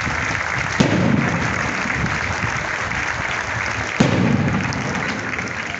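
A crowd applauding, with two sharp knocks: one about a second in and one at about four seconds. The clapping eases off near the end.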